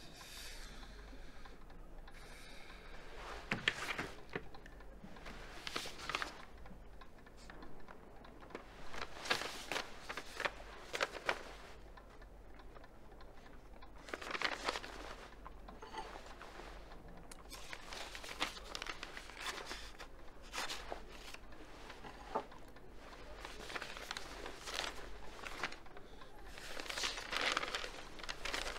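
Paper rustling and crinkling in irregular bursts: a letter being handled and unfolded.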